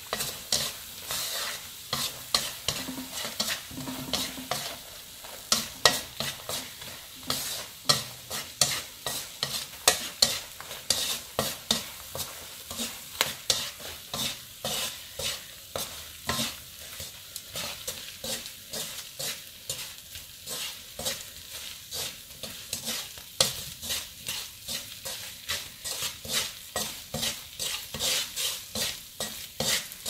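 Chopsticks stirring ginger slices in a nonstick wok, tapping and scraping the pan about two to three times a second, over a light sizzle. The sizzle is sugar syrup cooking down until it turns to dry crystals on the candied ginger.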